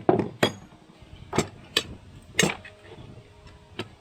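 About six sharp, irregularly spaced metallic taps, some with a short ring. A new drill-rod wrist pin is being tapped further into the piston to line up with its set screw.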